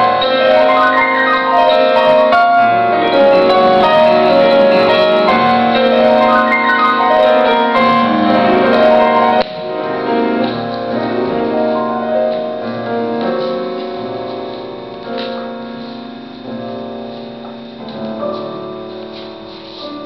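Live piano playing: a busy, loud passage of many notes that drops suddenly about halfway to a quieter, sparser passage, growing softer toward the end.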